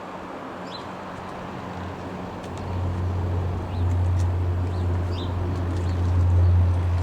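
Low, steady drone of an Airbus A400M's four turboprop engines, growing louder from about two and a half seconds in as the aircraft approaches. Birds chirp briefly over it.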